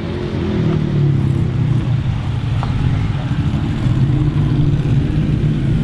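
Car engine running close by, a low engine note that wavers slightly and grows louder about half a second in.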